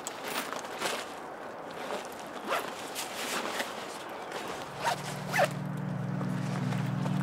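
Zipper on a bag pulled in several short scratchy strokes. About two-thirds of the way through, a low steady music drone comes in underneath.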